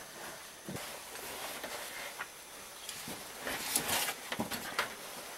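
A caver's suit and harness gear scraping and knocking against rock while climbing through a tight passage: irregular scrapes and small clicks, busiest and loudest a little past the middle.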